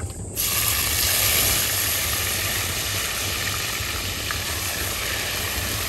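Hot oil sizzling in a clay pot as bay leaves, whole spices and chopped tomato fry in it. The sizzle starts suddenly just after the start and then holds steady.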